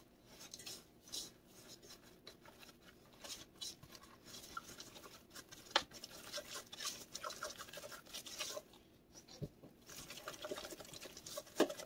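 Silicone spatula stirring flour into a thick pumpkin batter in a mixing bowl: faint, irregular scraping strokes, with a few light knocks of the spatula against the bowl.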